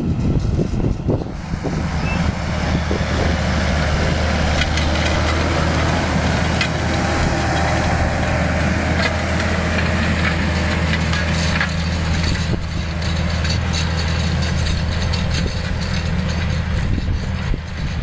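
Fendt 926 tractor's six-cylinder diesel engine running steadily under load as it pulls a Väderstad Carrier 620 disc harrow through the field, a constant low drone.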